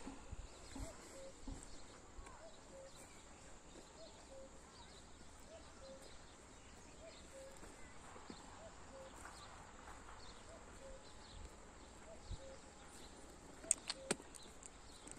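Faint outdoor ambience: a short chirping note repeats about every three-quarters of a second over a steady high hiss, with a couple of sharp knocks near the end.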